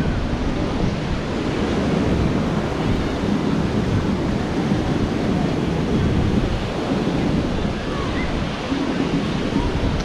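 Atlantic Ocean surf washing onto a sandy beach in a steady rush, mixed with wind buffeting the microphone.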